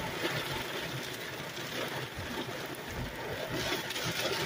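Heavy rain pelting the car's windshield and roof, heard from inside the car as a steady hiss, with a low rumble underneath.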